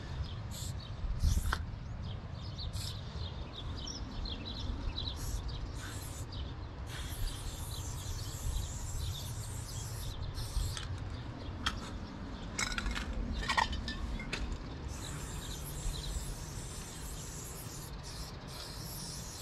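Aerosol spray paint can hissing as white highlights are sprayed on: several short bursts, then two longer sprays of about three seconds each, one about seven seconds in and one about fifteen seconds in.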